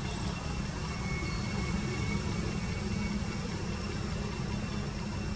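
Steady low rumbling noise with no clear beat, with a few faint high chirps over it.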